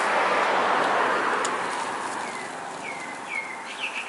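A broad rushing noise swells and fades over the first two seconds. From about two seconds in, a small bird chirps repeatedly: short, downward-sliding chirps that come faster and busier near the end.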